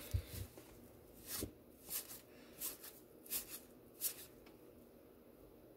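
Baseball cards being flipped through one at a time, a faint cardboard swish as each card slides off the stack, about seven in a row before stopping near the end.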